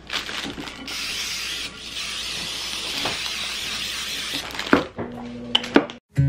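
Aerosol cooking-oil spray hissing steadily for about three and a half seconds as it coats a glass baking dish, with one brief break. Near the end come a few sharp clicks and crinkles of a plastic bread bag being opened.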